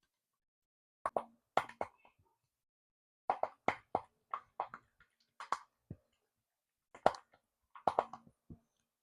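Kitchen utensils and dishware handled in food preparation: a run of short knocks, taps and clinks in three clusters, each sound sharp and brief.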